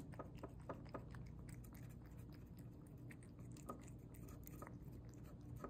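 Domestic cat eating wet pâté cat food from a dish: faint, irregular wet chewing and lip-smacking clicks.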